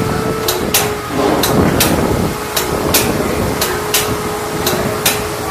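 Sharp metallic clinks of hand tools on steel, coming irregularly about two a second, over a steady faint hum from the Abrams tank's engine compartment.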